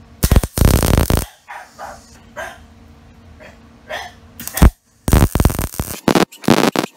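MIG welder tack-welding steel horseshoes together, the arc crackling in short bursts. One tack lasts about a second near the start, a brief one comes around four and a half seconds in, and several more follow in quick succession in the last two seconds.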